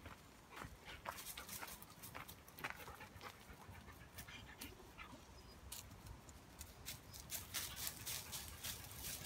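Footsteps and dog paws crunching on a gravel and leaf-litter path, heard as a faint, irregular scatter of soft clicks that gets busier near the end.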